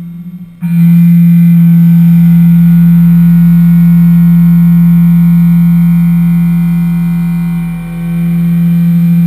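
Solid end mill cutting metal on a CNC milling machine in a high-speed dynamic milling toolpath: a loud, steady, low tone from the cutter that sets in sharply about half a second in, with a short dip near 8 seconds and another at the very end, as the tool briefly lightens or leaves its cut.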